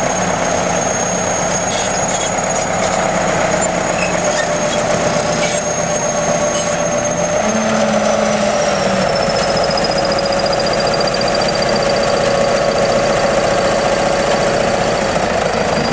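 Crawler bulldozer's diesel engine running steadily under load as the blade pushes earth, with a high whine that drops slightly in pitch about seven to eight seconds in. A few faint clicks come in the first half.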